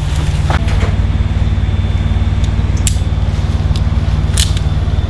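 A large engine running steadily with a low, even drone, with a few short sharp clicks over it.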